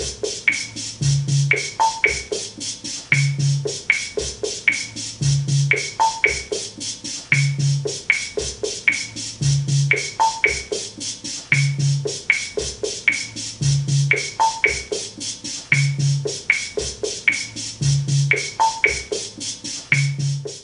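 Wurlitzer Sideman 5000 drum machine playing a steady rhythm pattern: a high cymbal-like tick about four times a second, a low drum about every two seconds, and a higher woody knock about every four seconds.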